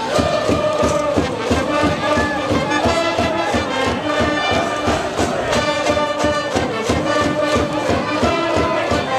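A high school brass band playing a cheering tune over a steady drumbeat, with a large cheering section chanting along in time.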